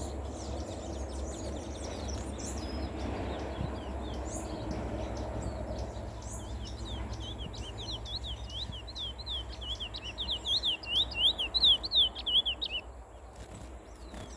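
A pardinho, a small Brazilian songbird, singing a fast run of repeated up-and-down notes for about six seconds, loudest just before it stops. Under it is a low steady rumble that eases off about halfway through.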